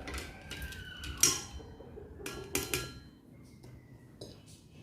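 A few sharp clicks and clinks of hard kitchen items being handled and set down, some ringing briefly; the sharpest comes about a second in.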